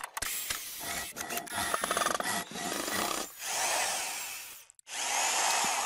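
A run of short, abruptly cut tool sounds: clicks and snaps in the first seconds, then a circular saw cutting through an insulated sandwich panel for a little over a second, stopping suddenly.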